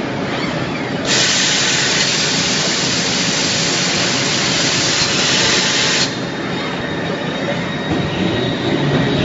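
Forging-line machinery running, with a loud hiss that starts suddenly about a second in and cuts off sharply about five seconds later.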